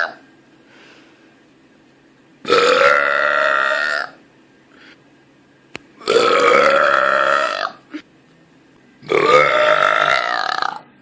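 A woman burping loudly three times, each burp a long, drawn-out belch of about one and a half to two seconds, with a pause of a couple of seconds between them.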